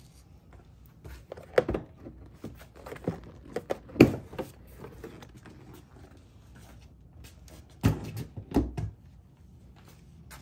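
Clunks, knocks and plastic rattles as the seat of a 2001 Honda Helix scooter is handled and taken off. The loudest knock comes about 4 s in, with a pair of knocks near 8 s.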